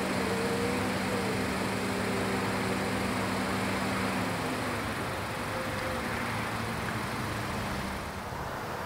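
Boeing 737-700's CFM56-7B turbofan engines running at low power as the airliner turns and lines up on the runway. It is a steady jet hiss and rumble, with a faint low hum that fades out about halfway through.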